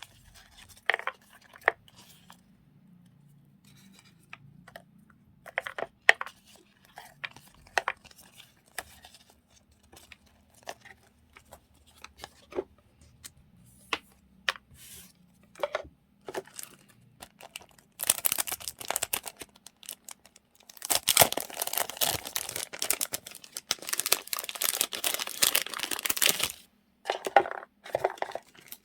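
Journaling supplies being handled and sorted: scattered light taps and rustles of paper and plastic, then a long stretch of loud crinkling and tearing of paper and plastic packaging, starting about eighteen seconds in and running, with a short break, for some eight seconds.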